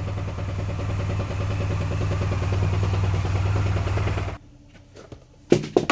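Honda Silver Wing 600 parallel-twin scooter engine idling with a fast, steady knocking, then switched off about four and a half seconds in, followed by a sharp knock or two. The mechanics suspect the knock comes from worn crankshaft connecting-rod or main bearings, with radial play in the crankshaft.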